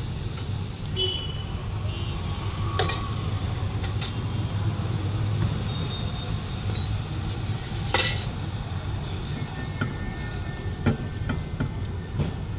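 Metal spatula chopping and scraping samosa chaat on a flat metal griddle: a couple of sharp clinks, then from about ten seconds in a quick run of taps, over a steady low rumble of street traffic.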